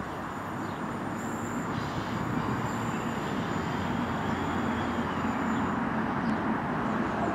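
Class 153 single-car diesel railcar running away up the line, its engine and wheels a steady rumble that grows slightly louder.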